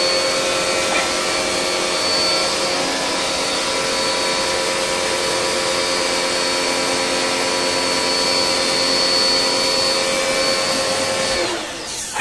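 Electric pressure washer running, its motor-pump giving a steady whine over the hiss of the water jet blasting an air-conditioner evaporator coil. Near the end the trigger is released: the motor winds down and falls quiet, then starts up again.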